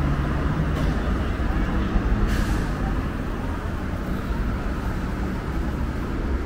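Steady noise of road traffic at a busy city intersection, passing vehicles' engines and tyres, with a short hiss about two seconds in.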